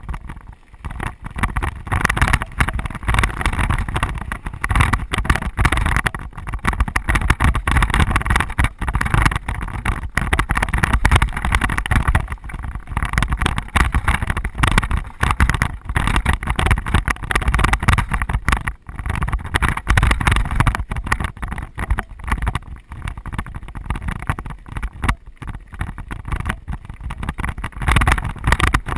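Wind buffeting the microphone of a mountain bike's action camera, mixed with tyres rolling over rocky dirt singletrack and the bike and mount rattling on the bumps, in constant uneven jolts.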